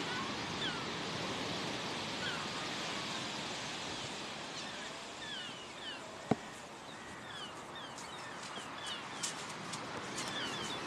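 Heavy surf washing onto a shingle beach, a steady rush of noise. Over it come many short, falling bird chirps, more of them in the second half, and a single sharp click about six seconds in.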